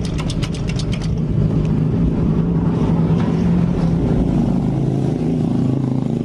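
Honda Supra's single-cylinder four-stroke engine running steadily at idle, with a quick run of ticks in the first second.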